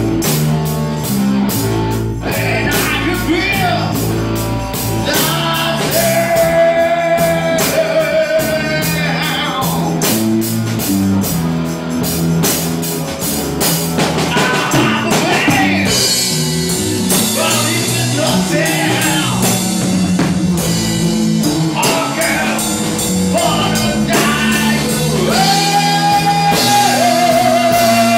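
Rock band playing: a man sings over bass guitar and a drum kit, his voice holding long notes between the phrases.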